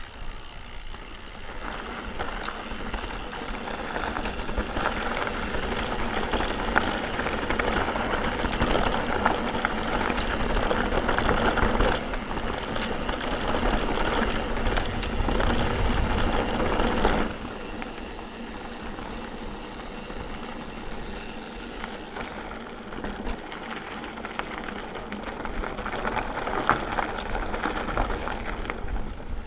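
Mountain bike ridden over a rough trail: tyres rumbling and the bike rattling, with wind on the microphone. It is louder through the first half and drops to a quieter rolling noise at about seventeen seconds.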